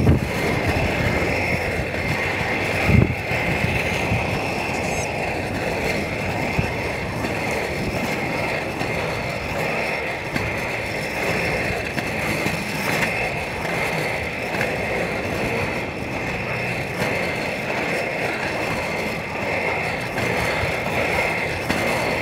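Inline skate wheels rolling steadily over smooth asphalt, a continuous rumbling hiss, with one sharp thump about three seconds in.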